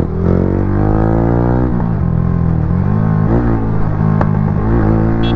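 Yamaha R15 V3's single-cylinder engine through an aftermarket exhaust, revving hard under way; its pitch climbs, drops back and climbs again a few times as it accelerates through the gears.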